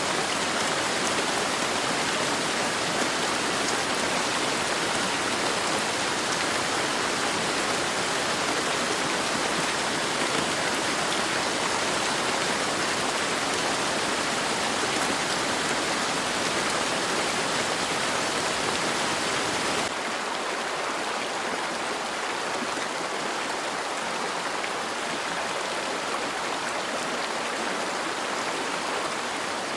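Steady heavy rain, a dense even hiss. About twenty seconds in it changes abruptly to a slightly quieter, duller wash.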